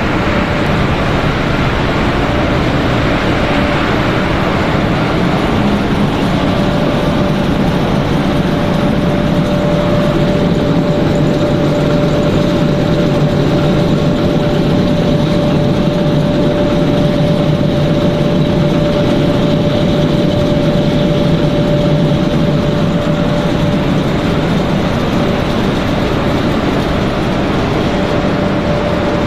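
Snack-pellet production line machinery running: a steady mechanical drone of motors and conveyors with a steady mid-pitched whine over it for most of the stretch.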